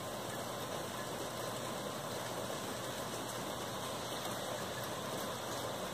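Steady rain during a night thunderstorm, an even hiss with no thunderclap in it.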